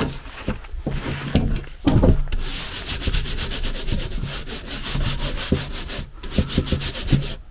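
A brush scrubbing black grate polish into an ornate cast-iron grate in rapid, even back-and-forth strokes. The strokes break off briefly twice.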